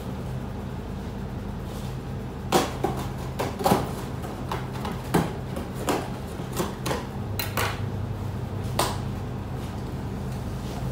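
A knife slitting the packing tape on a cardboard box: a run of sharp, irregular scrapes and knocks on the cardboard, over a steady low hum.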